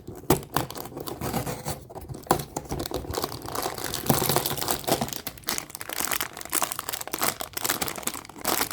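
Crinkly packaging of a fortune cookie advent calendar being handled and opened by hand: steady rustling and crackling with many small clicks, getting busier about halfway through.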